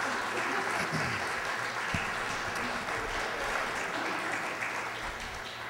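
Audience applauding a cast's bow, a steady patter of many hands that dies down near the end.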